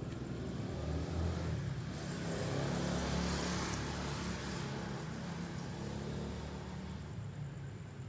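A car passing by: its engine and tyre noise swell to a peak about three seconds in, then fade away.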